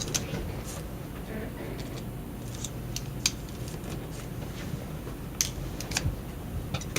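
Small sharp clicks and taps of a precision screwdriver and tiny screws on the metal parts of an iPhone 4S as its motherboard screws are taken out, irregular and scattered, over a low steady hum.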